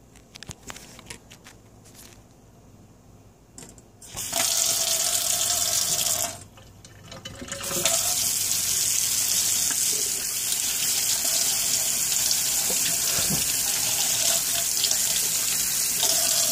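A few small clicks and knocks, then running water comes on about four seconds in, stops briefly about two seconds later, and runs steadily again to the end.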